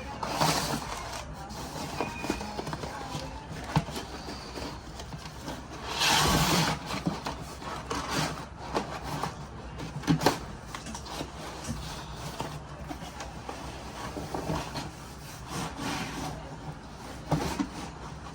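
Packaging being opened and rummaged through: rustling and tearing with scattered knocks as pieces are taken out of the box, with one longer burst of rustling about six seconds in.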